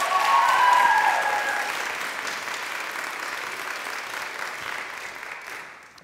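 Audience applauding, with a few voices cheering over it at the start; the applause dies away near the end.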